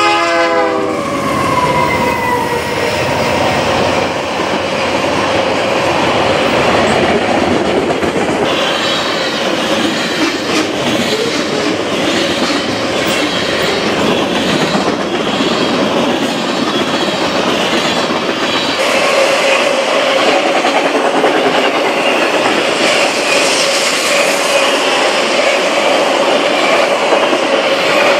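Canadian Pacific diesel freight train passing close by: the horn cuts off about a second in, then the locomotives and a long string of freight cars roll past with wheels clattering over the rail joints. A steady wheel squeal rings over the rumble, stronger in the second half.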